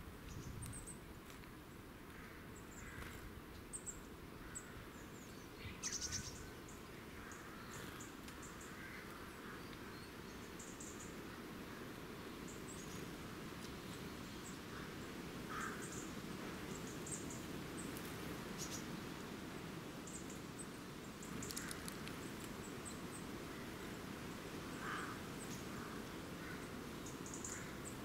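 Small songbirds calling around a woodland feeder: scattered short, very high-pitched chirps and calls, with a few lower calls, over a steady low background rumble. A few short sharp clicks stand out about six seconds in and again later.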